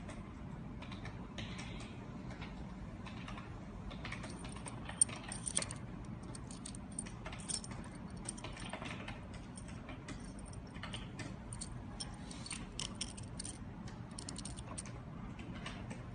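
Long zinc-plated round-head Phillips machine screws clinking against each other as they are shuffled in a hand: scattered light metallic clicks, with one sharper clink about five seconds in.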